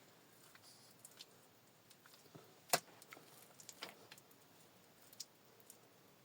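Scattered small clicks and taps, with one sharper knock nearly three seconds in.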